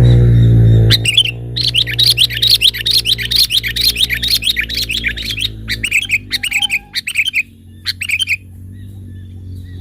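A loud low hum at the start that fades over about a second, then rapid chattering calls of sooty-headed bulbuls (kutilang) for about five seconds, followed by a few shorter separate call phrases.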